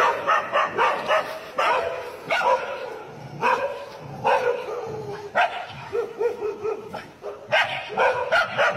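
Dog barking over and over in quick runs of barks, with one longer, drawn-out whine a little past the middle.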